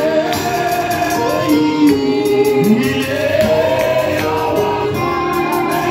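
Music: a choir singing a gospel song, several voices together with accompaniment.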